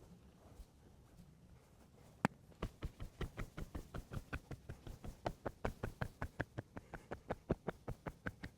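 Hands striking the body in a fast, even rhythm, about five strokes a second: massage percussion by chopping or cupped-hand slapping. It begins after a single sharp smack about two seconds in.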